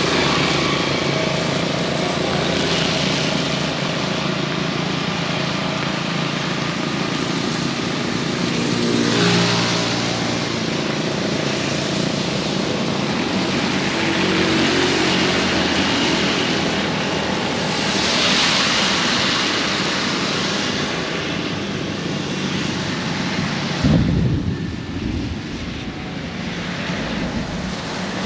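Heavy rain pouring in strong wind, with the engines of passing vehicles rising and fading in the steady rush. Near the end there is one sudden low thump, the loudest moment, after which the rain noise dips for a few seconds.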